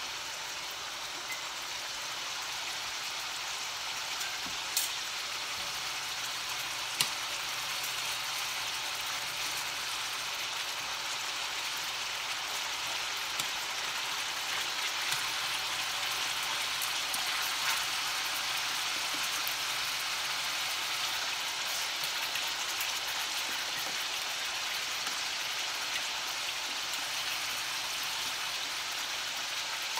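Pieces of marinated beef frying in olive oil in a stainless steel skillet: a steady sizzling hiss with a few sharp clicks, the loudest about five and seven seconds in.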